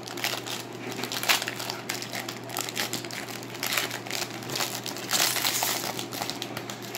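Foil wrapper of a Topps jumbo baseball card pack being torn open and crumpled in the hands, a run of crinkling and crackling that is loudest about five seconds in.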